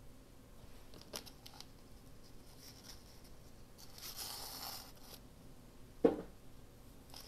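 Ribbon and a paper seed packet being handled: a few light clicks about a second in, a rasp lasting about a second in the middle, and a single knock near the end, the loudest sound.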